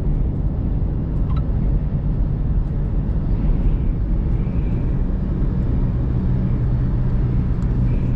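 Car engine and tyre noise heard from inside the cabin while driving with a caravan in tow, a steady low drone.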